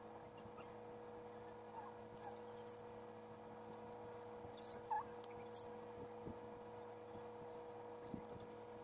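Quiet room tone with a faint steady electrical hum, broken about five seconds in by one short high chirp and near the end by a soft click.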